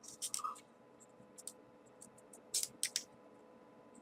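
Soft clicks and papery rustles of small folded 3D origami pieces being handled and slotted into the model, in a few short bursts: just at the start, about a second and a half in, and a cluster around two and a half to three seconds.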